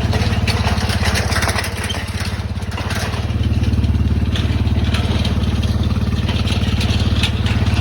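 Four-wheeler (ATV) engine running steadily while being ridden, an even low chug with clatter over it.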